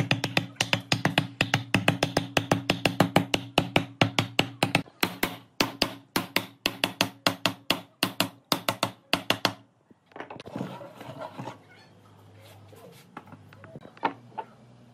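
Rapid, even knocking, about six sharp strikes a second over a steady low hum, which stops suddenly about ten seconds in. Softer handling noise and a few light knocks follow.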